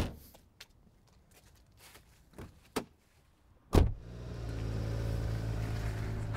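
The Renault Clio hatchback's tailgate slams shut, followed by a few faint clicks; just under four seconds in a car door slams and the engine starts, then idles steadily.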